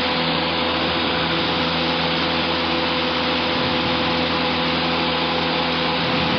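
Cessna 150's four-cylinder Continental O-200 engine running steadily at full takeoff power, heard from inside the cockpit as the plane climbs away just after lift-off, with a constant rush of noise.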